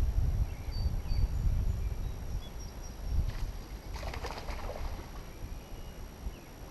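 Faint short bird chirps over an uneven low rumble that fades away, with a brief noisy rustle about four seconds in.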